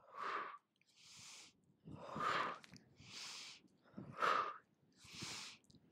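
A woman's breathing in time with abdominal crunches: louder and quieter breaths alternate, about one of each every two seconds.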